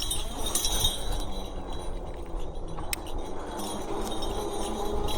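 A NAKTO Folding Ox folding e-bike jingles and rattles with light metallic clinks as it rides over uneven ground, over a steady low rumble of wind and tyres. There is one sharper click about three seconds in.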